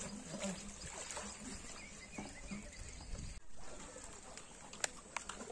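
Faint water sloshing and splashing as people wade and drag a fishing net through a muddy pond, with a few small splashes or knocks near the end.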